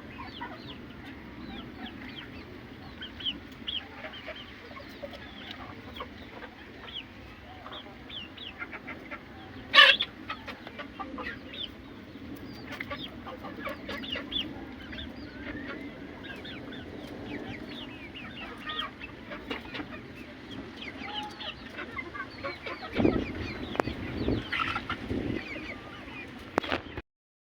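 A flock of chickens clucking and chirping, many short calls overlapping without pause. A single sharp knock comes about ten seconds in, and a few dull thumps follow near the end.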